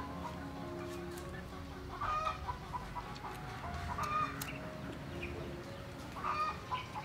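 Chickens clucking in short calls about every two seconds, over soft background music.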